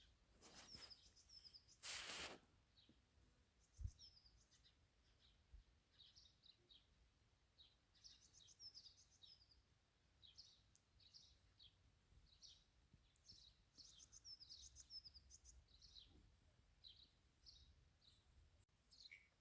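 Faint small birds chirping and twittering repeatedly, short high calls scattered throughout. A brief rush of noise about two seconds in and a low thump near four seconds.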